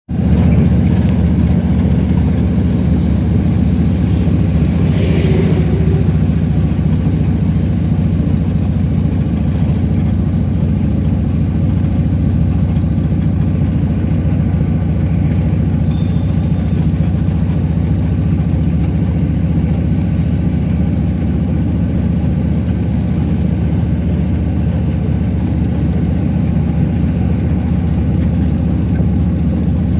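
Car engine and road noise while driving: a steady low rumble. About five seconds in there is a brief hiss.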